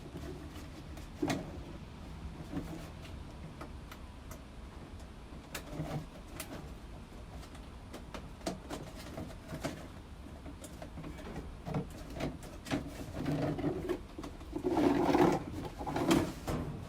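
Scattered light clicks and knocks of hands handling parts behind a washer and dryer, over a low steady hum, with a busier stretch of louder handling noise near the end.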